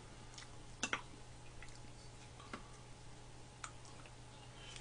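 Quiet eating: scattered light clicks of a spoon and chopsticks against bowls and the pan, the loudest a pair of clicks about a second in.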